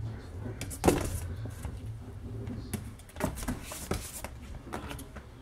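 Pitbull puppies scuffling and wrestling, with a few sharp knocks of paws and bodies against the pen's plastic walls; the loudest knock comes about a second in.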